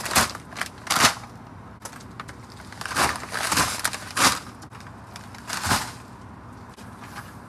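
Cardboard boxes of bagged grass seed being handled: a series of loud thuds and scraping rustles, several in quick succession about three to four seconds in.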